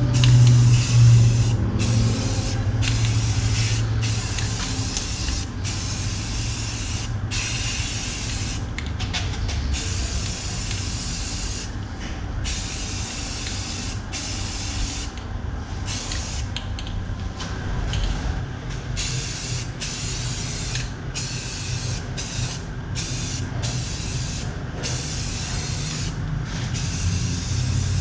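Aerosol spray can hissing in repeated bursts, broken by short pauses; a low hum is heard in the first couple of seconds.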